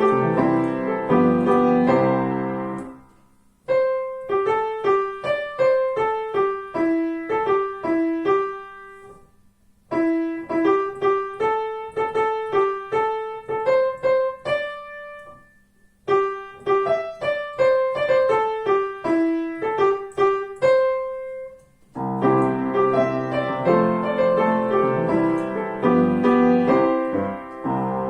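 Piano music: full chords for the first few seconds, then three short phrases of a single melody line picked out note by note, each followed by a brief pause, and full chords again near the end, ending just before the close.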